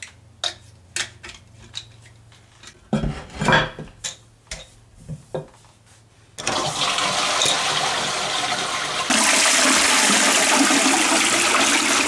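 A few light plastic clicks and knocks as the push button and ceramic cistern lid are fitted. Then, about six seconds in, the toilet flushes through a newly installed push-button flush unit: a steady rush of water that grows louder about three seconds later and carries on to the end.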